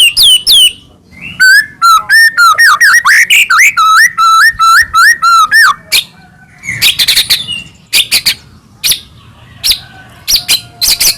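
White-rumped shama singing loudly in a rapid, varied song: clear sweeping whistles, a fast run of repeated down-slurred notes in the middle, then sharp clipped notes toward the end.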